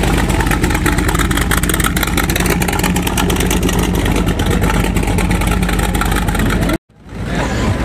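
Hot rod roadster's supercharged V8 running through chrome headers with a rapid, rough pulse. The sound cuts off abruptly near the end.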